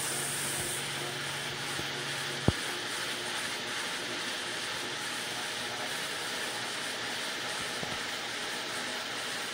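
Rotary hot-water extraction carpet cleaning tool running over carpet: a steady rush of vacuum suction mixed with the spinning head's electric motor. A single sharp click sounds about two and a half seconds in.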